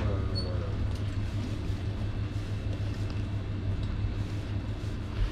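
Steady low rumble and hum of background noise, with faint voices briefly near the start.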